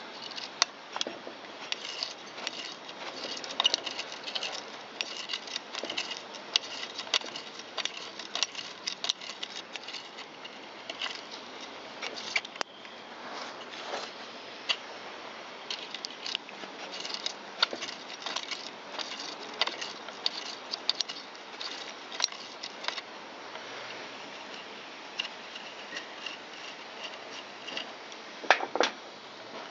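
Hand tool working in a rusted bolt hole to clear the threads: an irregular stream of small metallic clicks, ticks and scrapes, with a few sharper clicks near the end.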